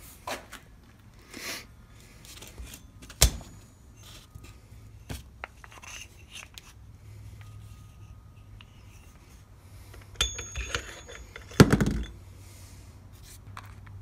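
Steel transmission gears and thrust washers being handled on a workbench: a sharp knock about three seconds in, then a run of ringing metal clinks and a louder clatter around ten to twelve seconds in.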